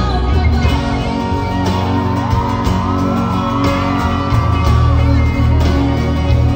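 Live band music with acoustic guitar and a heavy bass line, recorded from the audience in a concert hall, with whoops and shouts from the crowd over it.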